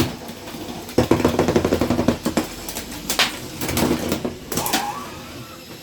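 Lego combat robots clattering: a rapid run of plastic clicking and rattling about a second in, with separate sharp knocks of plastic bricks striking later on.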